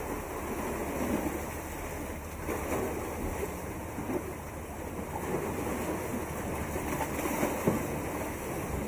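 Sea water washing and splashing, with wind buffeting the microphone.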